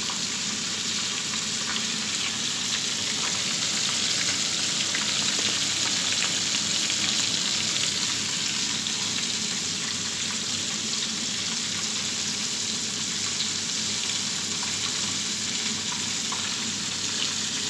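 Flour-coated chicken pieces frying in hot oil in a stainless steel pan: a steady sizzle with fine crackles.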